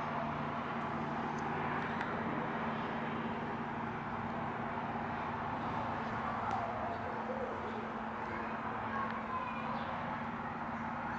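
Steady background hum with an even hiss underneath, holding level throughout, with no clear sound from the kittens.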